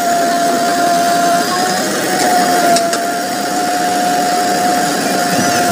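JCB 3DX backhoe loader's diesel engine running under load while the backhoe arm digs, with a steady high whine throughout. Two sharp knocks come at about the start and near three seconds in.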